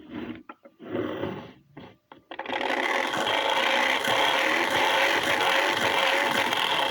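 Lego Technic plastic gear train spinning fast: a loud, steady mechanical whir of meshing gears that starts about two and a half seconds in, after a few clicks and rustles as the machine is handled.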